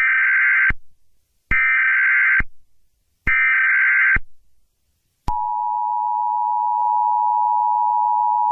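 Emergency Alert System SAME header: three short digital data bursts, each just under a second long and about a second apart. About five seconds in, the steady two-note EAS attention signal starts and holds.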